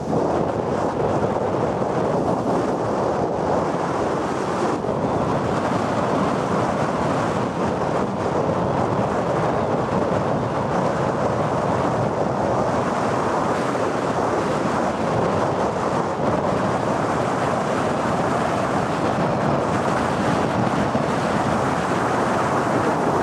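Steady rushing wind noise on the microphone of a moving car, mixed with road and tyre noise.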